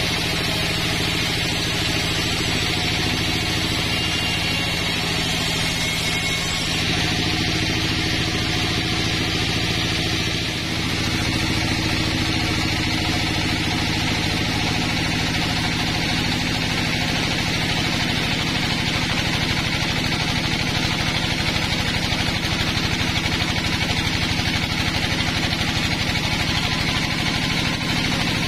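Band sawmill running steadily while its blade rips lengthwise through a pine log, a constant machine drone with a high sawing hiss.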